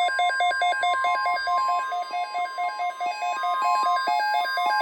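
NOAA Weather Radio alert: a steady 1050 Hz warning tone sounds under a weather radio receiver's rapid alarm beeping, about six beeps a second alternating between two pitches, signalling an incoming tornado watch. The steady tone drops out near the end while the beeping continues.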